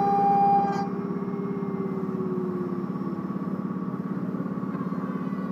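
Small CNC router at work on wood. Its high whine cuts off abruptly about a second in, a lower tone then slowly sinks in pitch over the next two seconds, and a rapid pulsing hum runs underneath.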